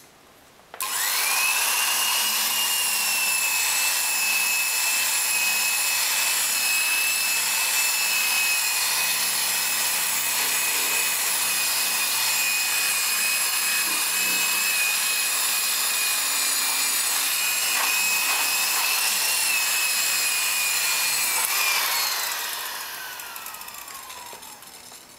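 Handheld electric polisher with a buffing pad, running with a steady high whine as it polishes a wooden interior trim panel. It starts about a second in, and near the end it is switched off and spins down, the whine falling in pitch as it fades.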